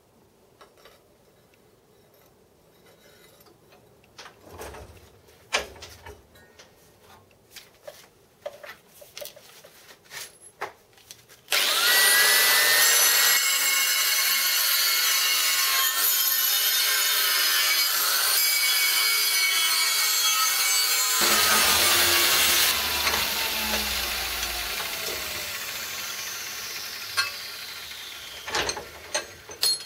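Light clicks and knocks of a steel plate being set in a bench vise. About eleven seconds in, an angle grinder starts with a rising whine and its cutting disc cuts through the steel plate in a loud, steady grinding. It is then switched off and winds down with a long falling whine, followed by a few knocks near the end.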